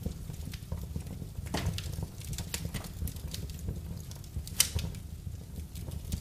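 Wood fire crackling in a fireplace: irregular sharp pops and snaps over a steady low rumble of the flames, with one loud crack a little over halfway through.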